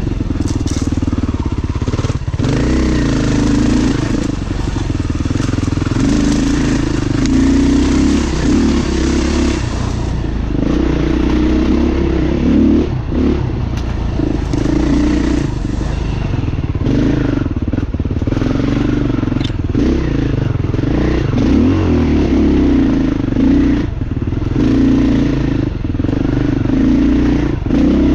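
Beta dirt bike engine running under way off-road, its revs rising and falling continually as the throttle is worked.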